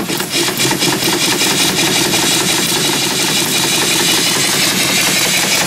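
Small vertical steam engine running, its short exhaust pipe blowing a lot of steam: a rapid, even beat of exhaust puffs over a continuous loud hiss.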